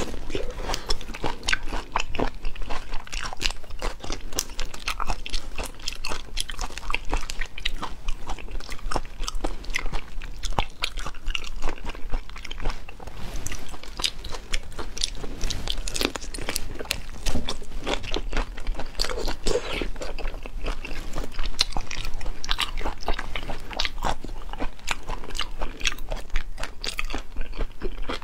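Close-miked mouth sounds of eating raw marinated black tiger prawns: wet chewing, biting and sucking, with many quick irregular clicks throughout.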